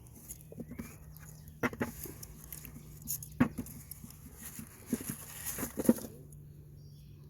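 Potatoes being handled, with scattered light knocks and short rustles at uneven intervals.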